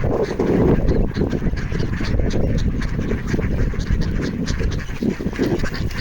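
A group of ducks quacking over and over, clamouring for food, with wind rumbling on the microphone.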